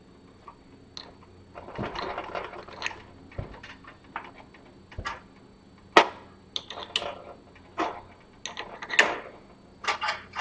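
Steel machine-skate parts clicking and clinking as they are handled and fitted together by hand: rollers, bearings and washers set onto the skate body. Irregular clicks come in clusters, with one sharp metal click about six seconds in the loudest.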